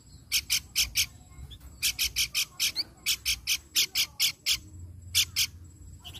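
Pelanduk bukit, a babbler, calling in runs of short, sharp, high-pitched notes, several quick notes per run with brief pauses between runs.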